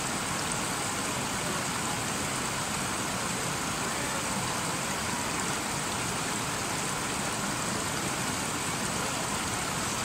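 Shallow mountain stream rushing over rocks below a small cascade, a steady, even rush of water right at the microphone.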